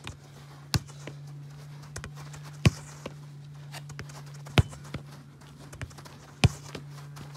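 A football kicked four times at an even pace, about two seconds apart, each a sharp thud, with a softer knock after each as the ball is taken on the turf and gloves. A steady low hum runs underneath.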